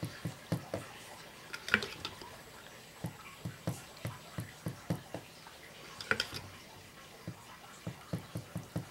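Rubbing alcohol being tipped from a plastic jug onto a paper towel: a run of small irregular drips and ticks from the liquid and the handled jug, with a couple of sharper clicks, about two seconds in and about six seconds in.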